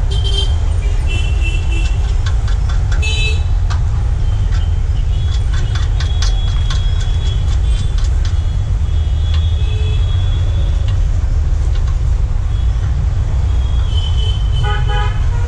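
Steady low rumble of an idling vehicle engine, with light metallic clicks and clinks of a spanner on a bolt in a steel tow boom, several in quick succession during the first half.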